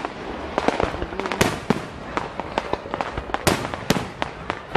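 Fireworks display going off: an irregular run of bangs and crackles, several a second, some much louder reports among them.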